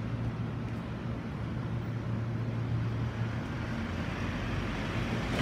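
Steady low hum and traffic-like background, with the rumble of an approaching Tobu 30000 series electric train growing slowly louder over the last couple of seconds.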